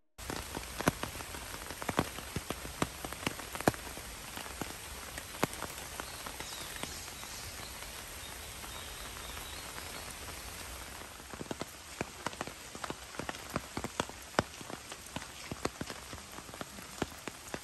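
Steady rain falling, with many sharp drop hits close by, fewer in a lull midway.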